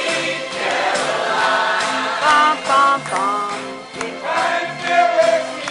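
A small amateur choir of men singing together from songbooks over instrumental backing music with a steady beat.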